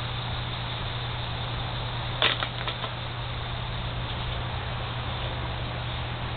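A plastic hula hoop clattering down: one sharp clack about two seconds in, followed by a few lighter knocks as it settles, over a steady low hum and hiss.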